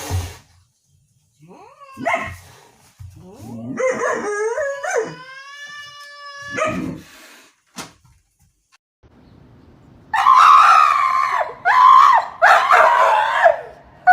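A dog howling and whining in drawn-out, pitch-bending calls: a long held howl a few seconds in, then louder, wavering yowls near the end.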